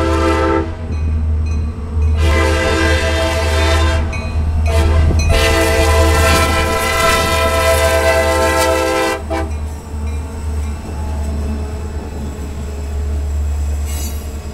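CSX freight diesel locomotives sounding their air horn, a chord of several tones, in the crossing pattern: the end of one blast, a long blast, a short one, then a long blast that stops about nine seconds in, over the low rumble of the locomotives. After the horn, hopper cars roll past with a steady rumble and some wheel clicks near the end.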